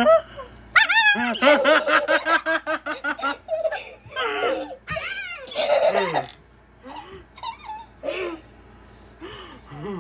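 A person laughing hard: a quick, even run of ha-ha-ha beginning about a second in, followed by shorter, softer bursts of laughter.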